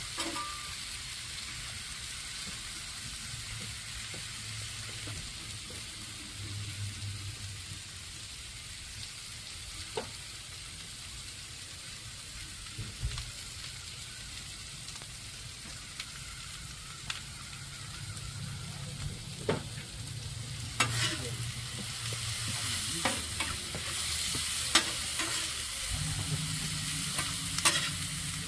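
Peppers, mushrooms and onions sizzling as they sauté in butter in a pan, with a utensil stirring and clicking against the pan, more often and louder in the last third.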